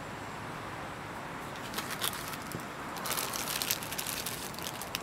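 Plastic bag around a coiled USB cable crinkling and crackling as it is handled, in irregular clicks that begin about a second and a half in and grow busier towards the middle.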